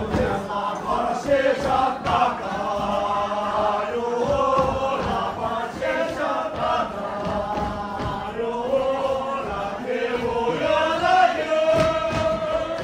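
Many voices singing a chant-like song together in unison, with long held notes over a steady beat.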